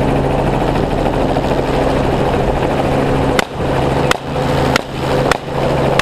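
Helicopter engine and rotors running steadily, with a quick string of about five rifle shots, roughly two-thirds of a second apart, starting a little past halfway.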